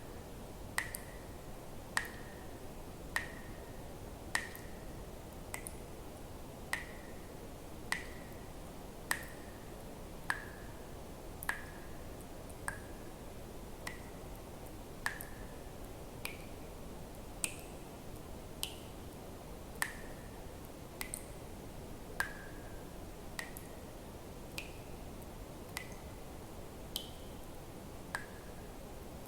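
Water drops dripping at a steady pace, one about every 1.2 seconds. Each drop is a sharp plink with a short ringing tone, mostly at the same pitch with now and then a higher one, over a faint steady hiss.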